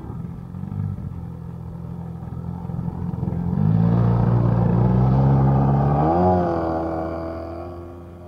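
Single-cylinder two-stroke DA-100 petrol engine of a large-scale Spacewalker model airplane running at low throttle. About three and a half seconds in it is opened up for the takeoff run. Near six seconds the engine note rises in pitch, then fades as the plane rolls away.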